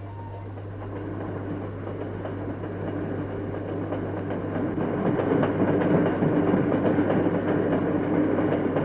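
Train running on rails: a rumbling noise that grows louder over several seconds and eases off near the end.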